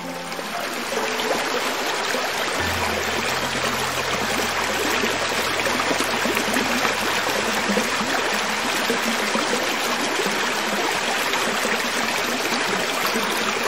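Creek water flowing over rocks: a steady rushing and trickling.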